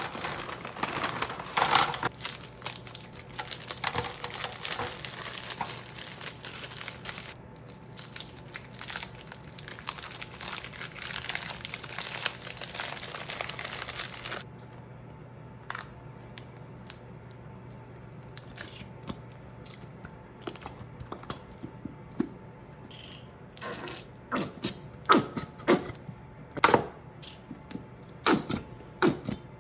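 Plastic food bags crinkling and rustling as frozen meatballs and then cocktail sausages are shaken out into a foil pan. The crinkling stops about halfway through. Near the end come several sharp spluttering squirts from squeezed plastic bottles of barbecue sauce.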